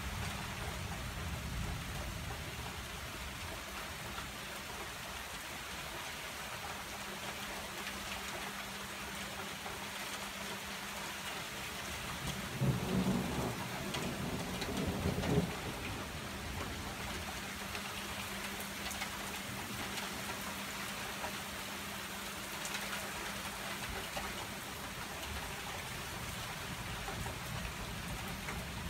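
Heavy rain falling steadily, with a roll of thunder rumbling for about three seconds about halfway through.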